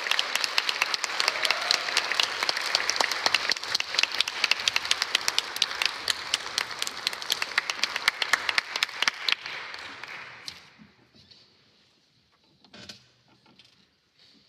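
Audience applauding: dense clapping that thins out and dies away about ten seconds in. A single faint knock follows near the end.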